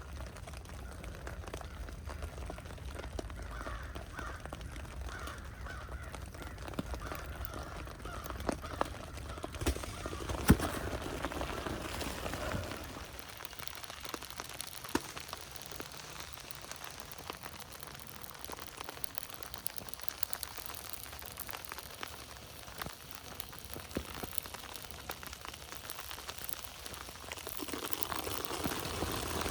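Sleet falling in scattered small ticks over a steady outdoor hiss, with a crow cawing a few times in the first seconds and one sharper knock about ten seconds in.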